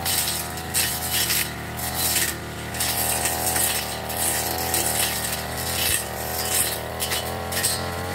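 Backpack brush cutter's small petrol engine running at working speed, its pitch dipping and recovering as the spinning cutting head bites into grass and weeds, with short bursts of cutting noise about every half second.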